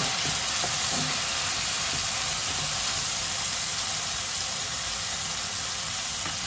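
Chicken pieces sizzling steadily in hot olive oil in a nonstick pan, browning.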